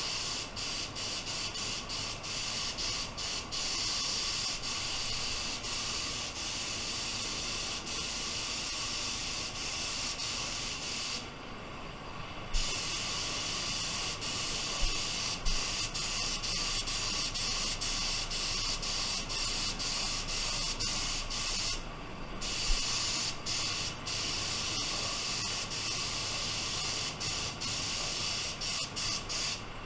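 Gravity-feed paint spray gun hissing steadily as it sprays black base coat. The air stops twice, briefly, when the trigger is let go.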